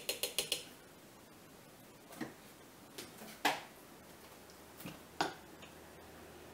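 A utensil clicking rapidly against a pan for the first half second as a mixture is hurriedly stirred, then a few separate knocks and clunks of kitchen things being handled, the sharpest about three and a half seconds in.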